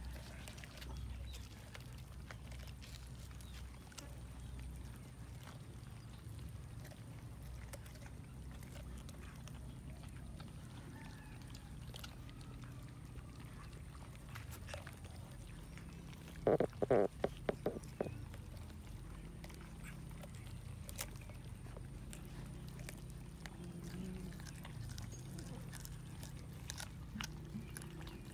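Cats chewing and tearing at a whole cooked chicken: faint munching and small clicks over a low steady hum. About halfway through comes a quick run of about six louder sounds lasting a second and a half.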